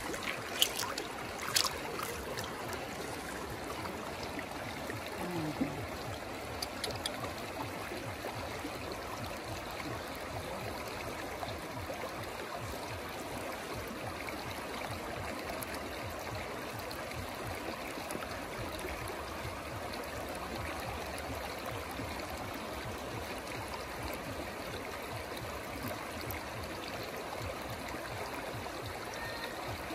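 River water flowing in a steady rush, with a few sharp clicks in the first two seconds.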